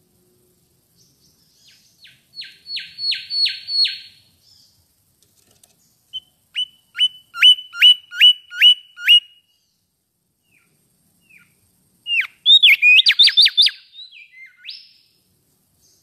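Mangrove whistler singing three phrases of clear whistles. The first is a run of about six quick downslurred notes. The second is about seven short notes that rise sharply and hold. The third, near the end, is a faster, jumbled run of notes.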